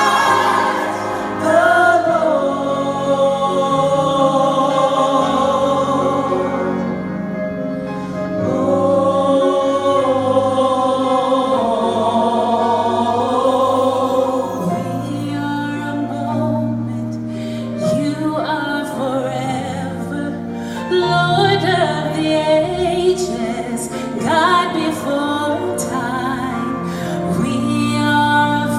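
Vocal music: singing voices with vibrato over held chords, with percussion and a bass line coming in about halfway through.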